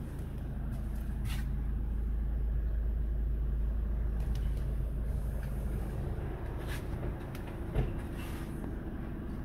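Low, steady rumble of an idling vehicle engine, swelling slightly and easing off, with a few light clicks and one sharp knock near the end.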